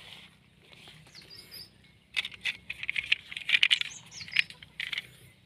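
A quick run of light clicks and clatter of small hard objects being handled, starting about two seconds in and lasting some three seconds. Faint bird chirps can be heard through it.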